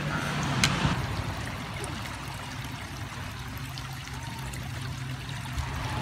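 Small stream trickling steadily over stones.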